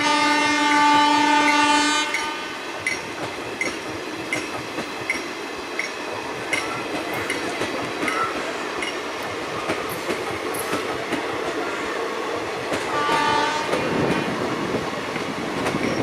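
Express train coaches rolling past with a steady clickety-clack of wheels over rail joints, about one click every 0.7 seconds. A WAP-7 electric locomotive's horn blows for about two seconds at the start and again briefly about 13 seconds in.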